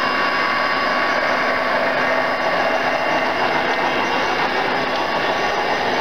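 Large-scale model train running past on its track: a steady mechanical whirring hum with a few held tones.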